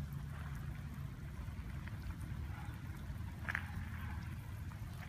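Light rain with water dripping and trickling over a wet gravel yard, over a steady low rumble. One sharper tap stands out about three and a half seconds in.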